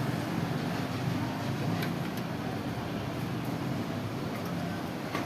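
A steady low machine hum, with a few faint ticks.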